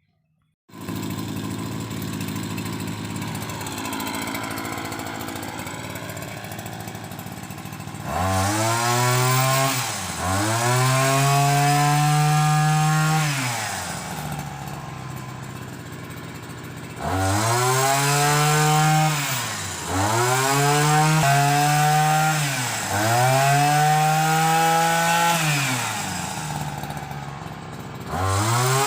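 Small engine of a pole pruning multi-tool starting up and running steadily, then revved up about six times, each burst held for two to three seconds before dropping back, while it is used to cut overhead branches.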